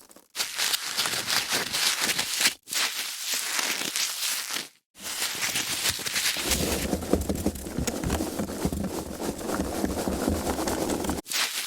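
Foam packaging being handled: dense crackling and rustling in three bouts, cut apart by short silences about two and a half and five seconds in, the last bout longest and heavier in the low end.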